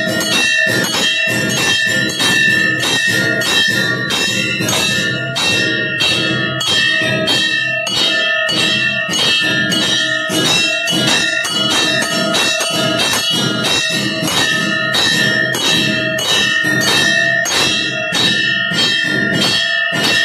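Temple bells rung rapidly and without pause during aarti, several strikes a second, their ringing tones overlapping into a continuous clangour.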